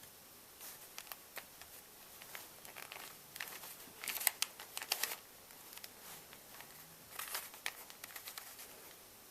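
Close-miked hand sounds: crisp clicks and rustling from small hand-held objects being handled, in two clusters, the loudest about four to five seconds in.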